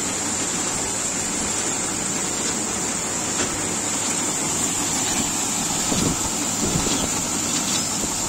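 Grain loader running, its scraper feeder and conveyor sending a continuous stream of grain out of the spout into a heaped tractor trailer: a steady, dense hiss of pouring grain over the machine's running.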